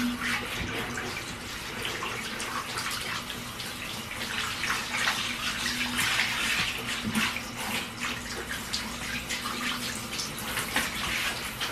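Handheld shower sprayer running water over a small dog in a bathtub: a steady hiss of spray splashing on the wet fur and the tub.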